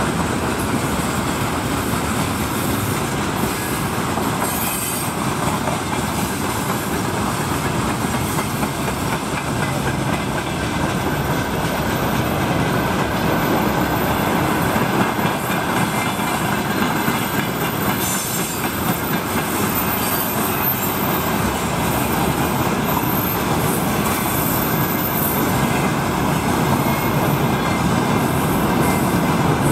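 Freight wagons of a long freight train rolling past close by: the steady rumble and rattle of steel wheels on the rails, with clicks over the rail joints and a thin high wheel squeal in the middle stretch.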